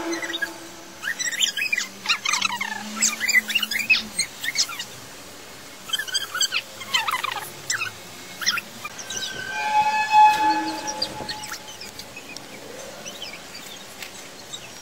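The mysterious sky sound from Kiev played back at triple speed: a jumble of quick, high gliding chirps through the first half, then about ten seconds in a brief horn-like tone with several overtones, like a long metal tube being blown.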